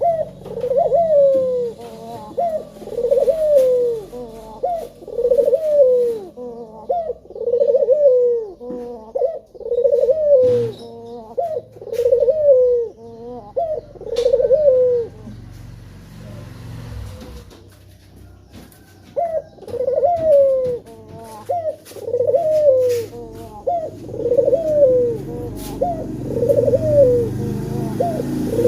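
Male puter (Barbary dove) cooing over and over, about one coo a second. Each coo rises, then falls. The birds fall quiet for a few seconds about halfway through, then start again. This is a loud, busy cooing used as a lure call to set other doves singing.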